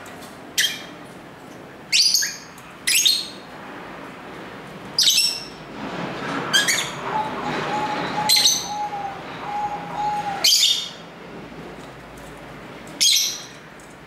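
Pet lovebirds giving sharp, high-pitched chirps: about eight short calls, each a second or a few seconds apart.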